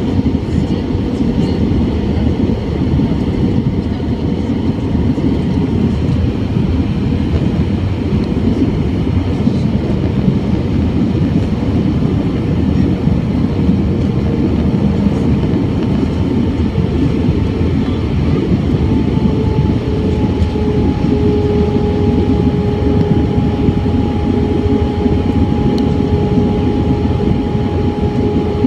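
Airbus A320 cabin noise at a window seat over the wing: a steady rush of air and engine drone. A thin engine tone running through it steps down slightly in pitch a little past halfway.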